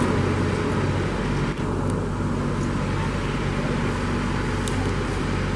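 John Deere utility tractor's diesel engine running steadily at low speed, pulling a flatbed trailer, with an even low drone.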